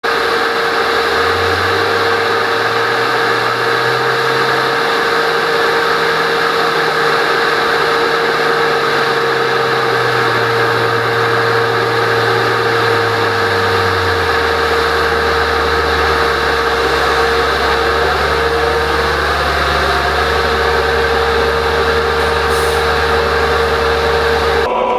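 Heavy farm machinery running steadily: a loud, even drone with a constant whine, its low hum shifting pitch a few times. The sound changes abruptly just before the end.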